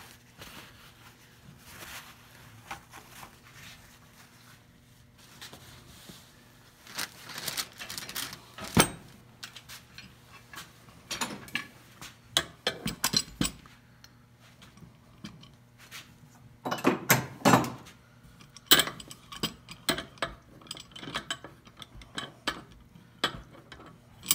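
Old iron C-clamps being handled on a clamped wood block: irregular metallic clinks and knocks. The loudest come in a cluster about two-thirds of the way through.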